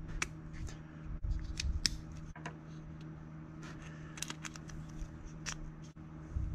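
Irregular sharp clicks and light taps of small RC kit parts being handled and fitted together during axle assembly, over a faint steady low hum.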